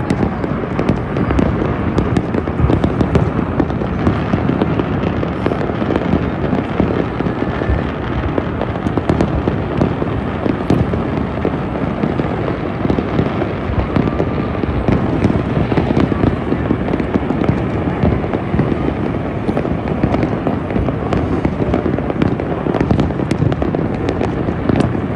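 Aerial fireworks display going off in a dense, unbroken barrage of booms and sharp crackling pops, with no pause between bursts.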